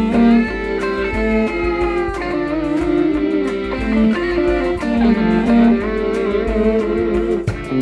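Background music: electric guitar playing a melody with bent notes over a steady drum beat.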